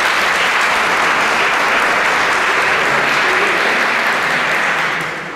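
Theatre audience applauding, dying away near the end.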